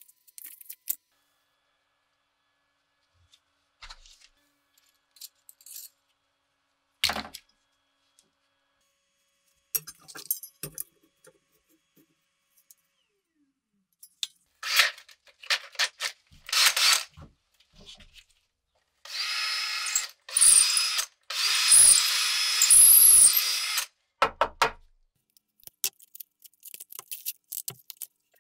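Tool packaging and drill bits handled on a wooden bench, with scattered rustles, taps and light metal clicks. About two-thirds of the way in, a cordless drill runs in three short bursts over about five seconds, its whine rising and falling.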